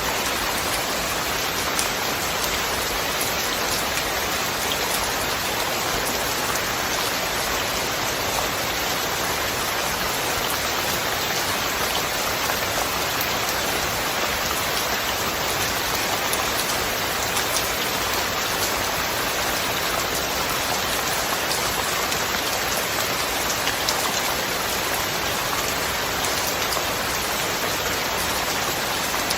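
Steady rain falling, an even hiss with fine scattered drop ticks and no thunder.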